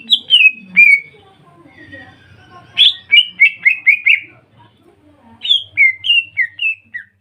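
Cucak ijo (greater green leafbird) song: loud, clear whistled notes that each slide downward, delivered in three quick phrases, one at the start, one about three seconds in and one from about five and a half seconds.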